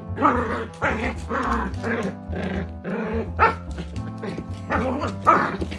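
A dog barking repeatedly, short sharp barks every half second or so, over background music with a steady bass line.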